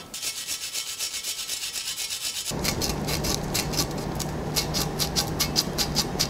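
Old paint being scraped and sanded by hand off a bare steel bicycle frame: quick, regular rubbing strokes, several a second. About two and a half seconds in the sound changes to fuller sanding strokes of a small abrasive pad along the tube, over a low steady hum.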